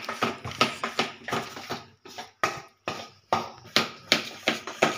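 Thick ground-lentil batter being beaten by hand in a stainless steel bowl: quick rhythmic slaps, about three strokes a second. The batter is being whipped in one direction to aerate it so the vadas come out fluffy.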